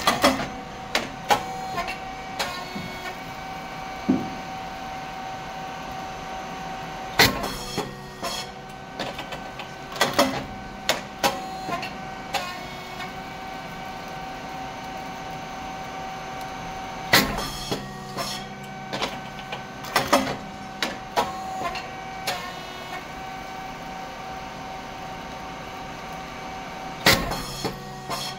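SYP35100 rice cake machine running through its production cycle: a steady hum from its motor, hydraulic pump and fan, with loud sharp bangs and clattering about every ten seconds as each three-cake cycle completes.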